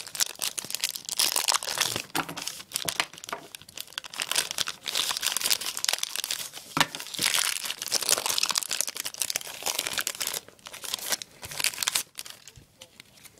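Trading card pack wrapper being torn open and crinkled by hand, a dense run of crackling and tearing that thins to a few faint crackles in the last few seconds.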